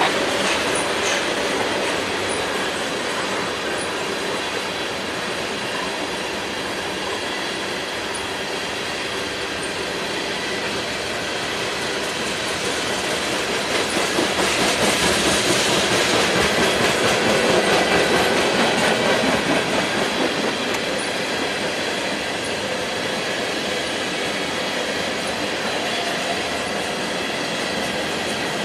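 Freight train of loaded tank cars rolling past: steady steel-wheel-on-rail rumble with rapid clicking and clacking of the wheels over the track. It swells louder about halfway through, then settles back.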